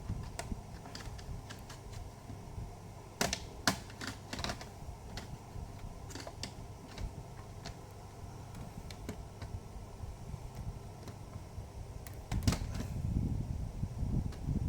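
Plastic clicks and snaps from an HP Pavilion G4 laptop's casing being pried open with a tester screwdriver. A cluster of sharp clicks comes about three to four and a half seconds in, and louder handling and rubbing noise sets in at about twelve seconds.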